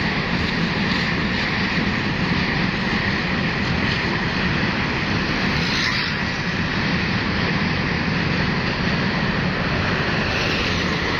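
Steady, loud rushing and rumbling noise of a vehicle travelling along a road: road and wind noise, unchanging throughout.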